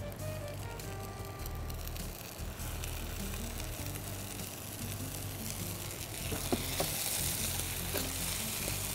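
Boiled potatoes and cream sizzling in a non-stick frying pan while a wooden spatula mashes and stirs them, with a few light scrapes against the pan. The sizzle grows louder in the second half.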